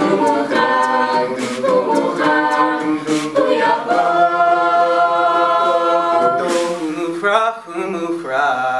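Mixed men's and women's a cappella group singing a Hebrew song in close harmony with no instruments. About halfway through they hold one long chord, then move on in shorter phrases.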